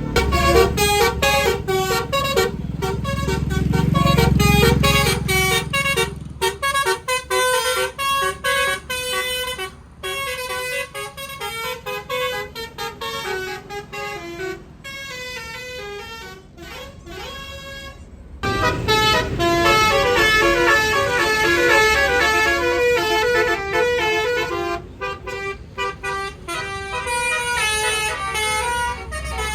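A bus's telolet basuri multi-tone horn playing a fast melody of stepped notes over the low rumble of the engine. The horn goes quieter about two-thirds of the way in, then starts up again louder with the engine rumble.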